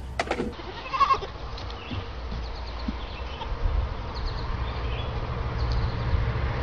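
Young goats bleating: one loud call about a second in, then short high bleats now and then over a steady low rumble.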